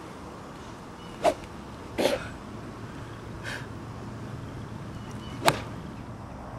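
Golf club swings: two sharp clicks of the clubhead striking, the first about a second in and the second, the loudest, near the end, with a short breathy burst of noise just after the first.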